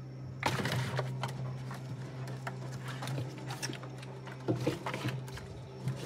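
Cartons being handled and set down on a refrigerator's glass shelf: a few knocks and scrapes, the loudest about half a second in and a cluster near the end. A steady low hum runs underneath.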